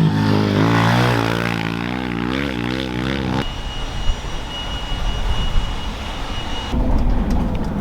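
A small engine revving up and down repeatedly, cut off abruptly about three and a half seconds in. It is followed by vehicle running noise with a steady high whine, which changes abruptly again to a lower rumble near the end.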